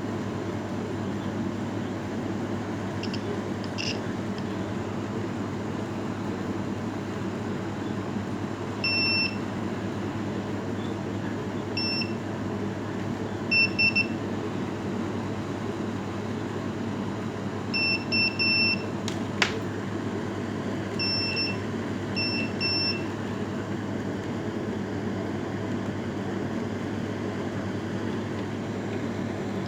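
Fire alarm equipment giving short, high electronic beeps, singly and in quick groups of two or three at irregular intervals, over a steady hum, with one sharp click partway through.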